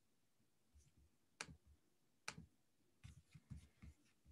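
Faint clicking at a computer: two sharp clicks about a second and a half and two and a quarter seconds in, then a quick run of softer clicks near the end.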